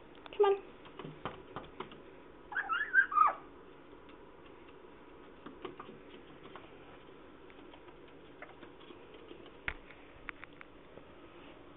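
Young African grey parrot whistling: a short falling whistle about half a second in, then a quick warbling run of whistles a couple of seconds later, followed by scattered light clicks and taps.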